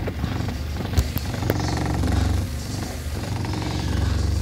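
Subwoofer playing a bass-heavy track: long, swelling deep bass notes that pulse in and out, with two sharp clicks about a second and a second and a half in.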